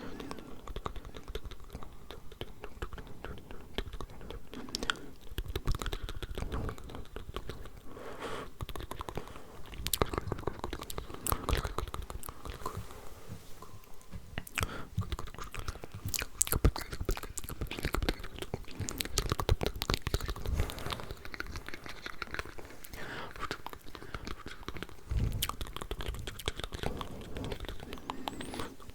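Close-up ASMR mouth sounds, layered over one another: a dense, continuous run of quick wet clicks and smacks.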